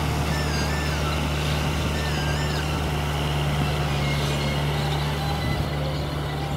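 Kubota 4501 tractor's four-cylinder diesel engine running steadily under load as it works through deep paddy mud. Two short wavering whistles sound about half a second and two seconds in.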